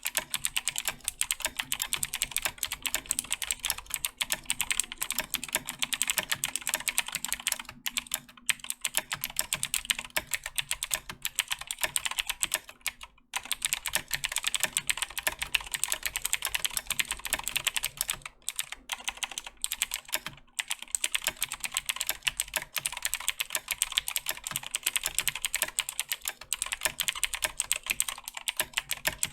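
Fast continuous typing on a Razer BlackWidow 2014 Tournament Edition mechanical keyboard with clicky Razer Green switches: a dense stream of sharp key clicks, broken by a few short pauses.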